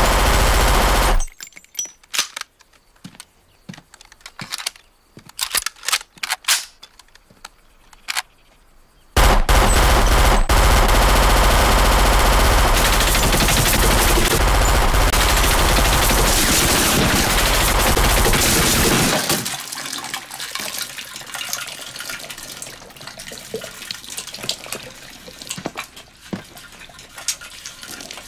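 Film soundtrack of automatic gunfire tearing through a box truck. A short loud burst is followed by a quieter stretch of scattered sharp cracks and bullet impacts, then about ten seconds of continuous, loud fire. The firing stops about 19 seconds in, leaving a steady lower hiss of liquid pouring from the bullet-riddled plastic buckets, with occasional ticks.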